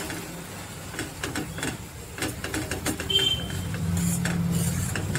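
A spatula scraping and clacking against a kadai as jute leaves are stirred together with salt and turmeric. A low hum joins in during the second half.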